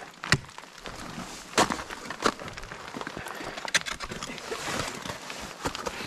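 Ice axe picks striking into a frozen waterfall's ice: about five sharp strikes at irregular intervals, a second or so apart.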